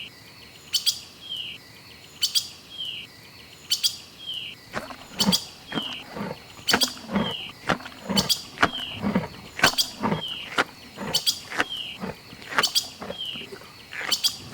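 A bird call repeating steadily about every second and a half, each a short falling chirp with a sharp click. From about five seconds in, lower-pitched calls come in between them, several a second.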